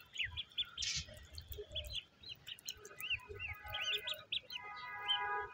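Birds chirping outdoors: a string of short, faint chirps, then a longer held call with several tones near the end.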